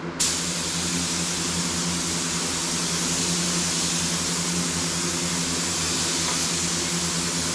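Air-powered paint spray gun hissing steadily as it lays down a coat of automotive clear coat, over a steady low machine hum.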